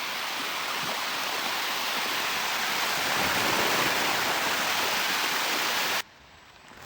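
Steady loud rushing of flowing water that cuts off abruptly about six seconds in, leaving a much quieter background with a few faint ticks.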